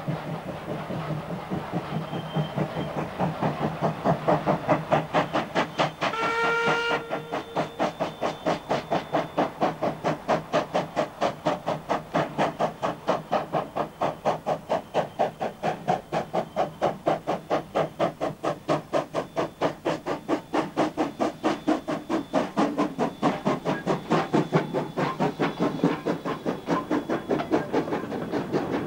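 Queensland Rail C17 class steam locomotive No. 974 working toward and past, its exhaust beating in a rapid, even chuff that grows louder as it nears, with one short whistle blast about six seconds in. Near the end the wagons and carriages roll past close by.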